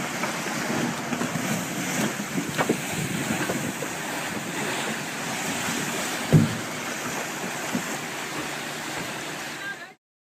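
Wind buffeting the microphone over rough open sea, with waves churning, and one sharp thump about six seconds in. The sound cuts off abruptly near the end.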